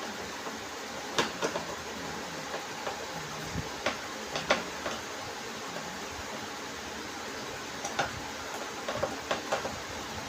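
Scattered sharp clicks and knocks, singly and in small clusters, over a steady hiss.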